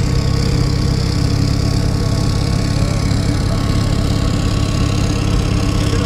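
A car engine idling steadily with a deep, even hum and no revving.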